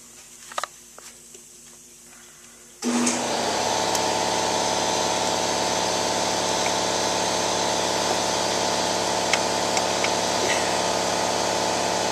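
A few faint clicks, then about three seconds in a machine starts up suddenly and runs with a loud, steady hum.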